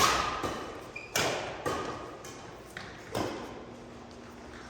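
A badminton rally: sharp racket hits on a shuttlecock, about one a second, each echoing in the hall. Brief squeaks from shoes on the court floor come between the hits.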